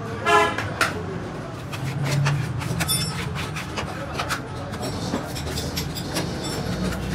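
Electric motor running a grinding drum with a steady hum, while lead battery plates scrape and clatter against it as their edges are ground. A brief, loud pitched tone sounds about a third of a second in.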